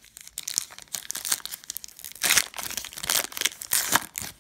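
Foil Donruss Optic basketball card pack being torn open at its crimped seal and crinkled in the hands, with irregular bursts of crackling that are loudest in the second half.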